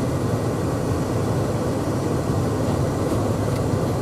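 Steady engine and road noise inside a pickup truck's cab while it is driven, an even low rumble with no change in pace.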